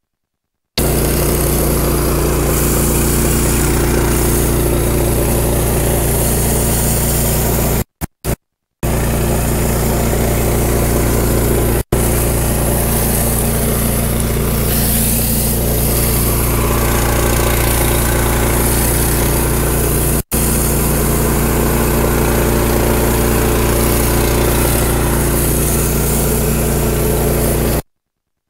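Small gasoline engine of a belt-driven pressure washer running steadily under load while a rotary surface cleaner is worked over concrete; the pump holds pressure without starving for water. The sound drops out completely for a moment several times.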